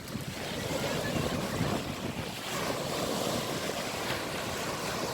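Seafront ambience: waves washing ashore, with wind rumbling on the microphone.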